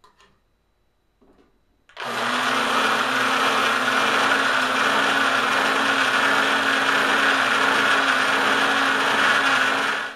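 Electric drill spinning an engine cylinder hone inside a wet cast-iron pump bore, honing out coarse machining marks. It starts about two seconds in, runs loud and steady for about eight seconds, then stops suddenly.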